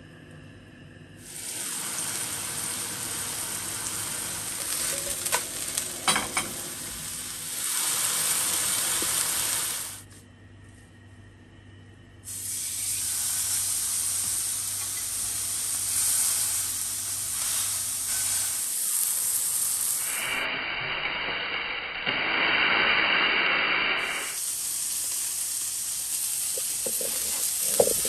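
Minced-meat burger patty sizzling in a hot frying pan, a steady hiss that starts about a second in. It drops away for a couple of seconds around the middle and then resumes. A few light clicks come around five to six seconds in.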